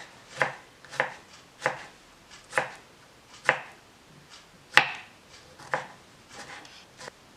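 Kitchen knife cutting a green chile on a wooden cutting board: slow, separate knife taps on the wood about once a second, seven clear cuts with a few lighter taps near the end.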